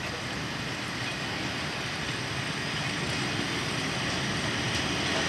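Covered hopper wagons rolling slowly over the rails while being pushed during shunting, a steady rumble of wheels on track that grows gradually louder as the wagons approach.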